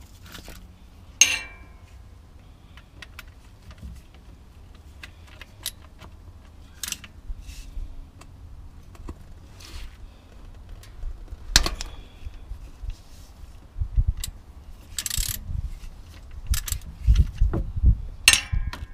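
Irregular metallic clicks and clinks of a ratchet and 24 mm hex socket being worked on the gearbox drain plug, the sharpest clink about a second in.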